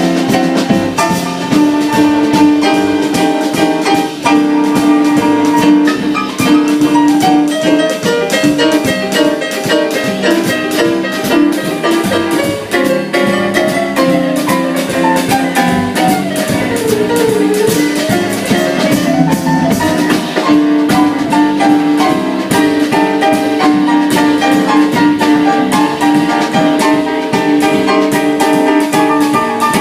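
Band playing an instrumental jazz passage, a drum kit keeping a steady beat under several pitched instruments.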